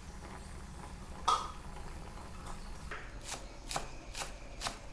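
Kitchen knife chopping green onions on a wooden cutting board, starting about three seconds in, at about two sharp chops a second. Before that there is a faint steady low sound and a single click.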